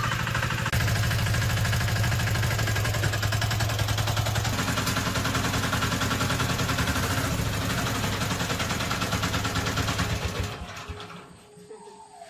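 An engine or motor running steadily with a fast, even beat, cutting out about ten and a half seconds in.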